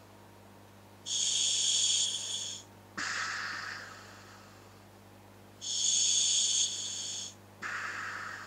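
Breathing through a scuba regulator fitted to a hooded gas mask: two breaths, each a loud hiss of about a second and a half as air is drawn through the demand valve, followed by a shorter, fading exhale that starts with a click of the valve.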